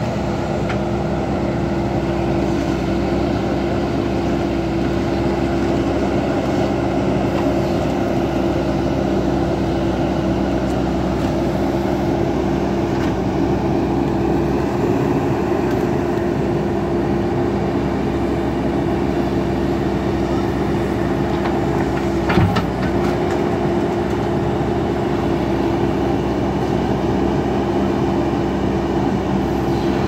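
JCB backhoe loader's diesel engine running steadily with a constant hum while the backhoe arm digs in mud, with one short knock about two-thirds of the way through.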